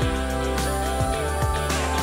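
Instrumental background music with a steady drum beat.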